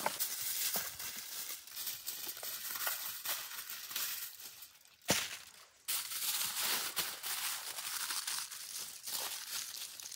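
Aluminium foil crinkling and rustling as hands fold and press it around a piece of raw meat. A sharp snap about five seconds in is followed by a brief lull before the crinkling resumes.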